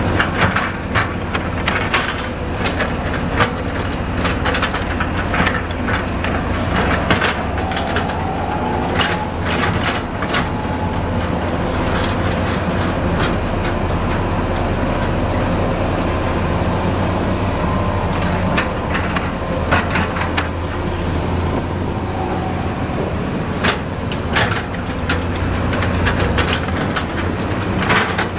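Heavy diesel earthmoving machinery running steadily, with frequent irregular sharp clanks and knocks over the engine's low drone.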